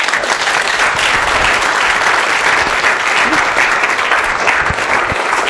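An audience applauding, the clapping breaking out all at once.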